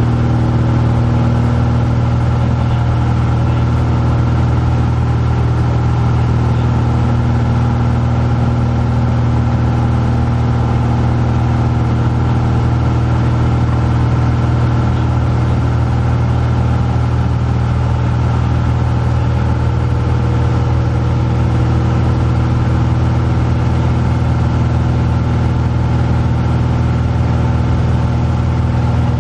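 Cessna light aircraft's piston engine and propeller running steadily in flight, heard from inside the cabin.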